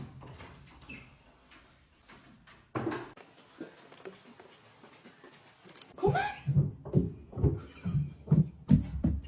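A cat meowing over and over in quick succession, about two calls a second, starting about six seconds in after a few soft knocks.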